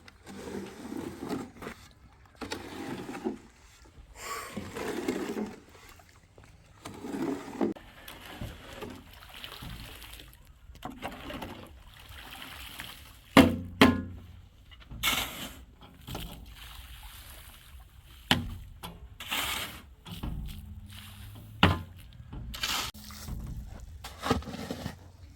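Hand tools working wet cement mortar: repeated scraping, sloshing strokes, then several sharp knocks in the second half.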